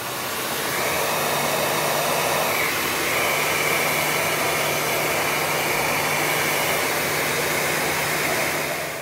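Electric heat gun running steadily, its fan blowing hot air along a granite backsplash to soften the adhesive behind it. A faint higher whine comes in about three seconds in.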